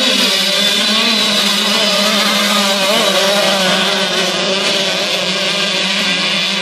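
A pack of 65 cc two-stroke youth motocross bikes revving hard together off the start line and pulling away, their high engine notes overlapping and wavering.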